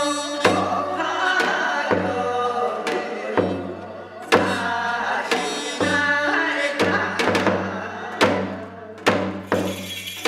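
A woman singing a Korean shamanic ritual song, her voice bending in pitch, over drum strikes that fall roughly once a second.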